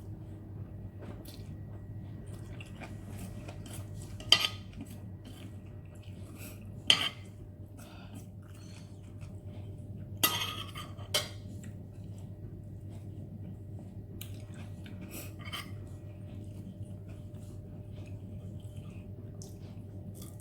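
Eating utensils clinking against a bowl of instant noodles: a few sharp clinks, the loudest four spaced a few seconds apart through the first half, and fainter ones later.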